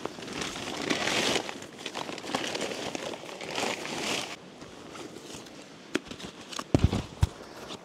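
Nylon rustling and crinkling as a rucksack and gear are shoved into a tent over the groundsheet, in several waves. After that it goes quieter, with a few low thumps near the end.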